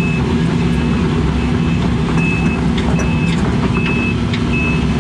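Case CX80 excavator's diesel engine running steadily, heard from inside the cab while the machine tracks along a trench pushing dirt with its blade. A short, high travel-alarm beep repeats a little faster than once a second.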